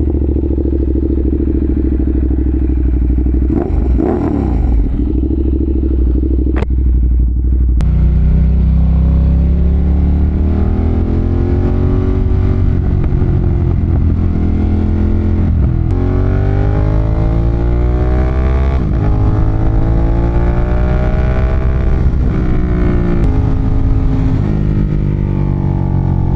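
Ducati Monster 1200's 1198 cc L-twin engine idling steadily just after being started, then pulling away and accelerating up through the gears, its pitch climbing and dropping back at each upshift, three times in the second half.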